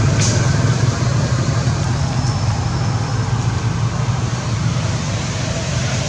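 Steady low rumbling background noise with no clear events.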